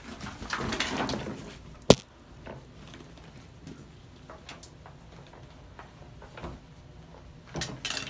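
Rustling of a bath towel being bunched over a bird by hand. There is one sharp knock about two seconds in, then faint scattered taps and a brief rustle near the end.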